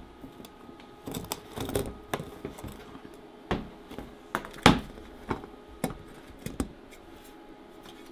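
Sharp knocks and clatter of a bundt pan and cake board being handled on a metal tabletop as the cake is flipped out of the pan. About a dozen irregular taps, the loudest about four and a half seconds in.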